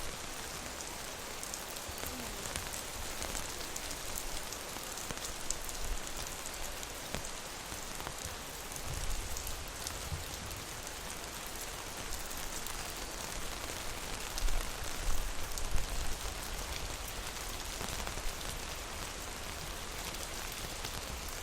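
Rain falling on an umbrella overhead: a steady hiss of rain with many separate drops ticking on the canopy. A few low, soft thumps swell up around the middle.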